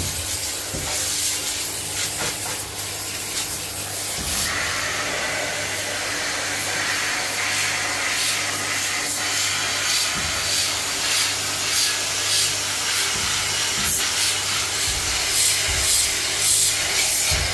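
High-pressure washer spraying water onto a split air conditioner's indoor evaporator coil: a steady hiss of the jet on the fins, with the washer pump's steady hum underneath.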